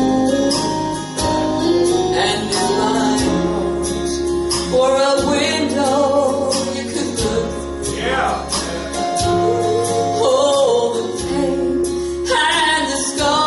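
A woman singing a gospel song into a microphone, over instrumental accompaniment with a bass line and a steady percussion beat.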